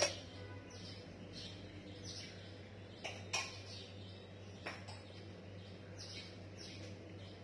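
Small birds chirping faintly: short high chirps that slide downward, scattered irregularly about once a second, over a low steady hum.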